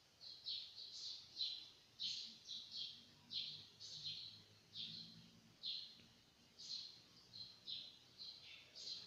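A small bird chirping over and over: short, high, falling chirps about twice a second.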